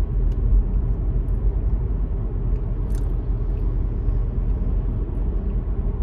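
Steady low road and engine rumble inside the cabin of a moving Nissan Altima sedan, with a brief click about halfway through.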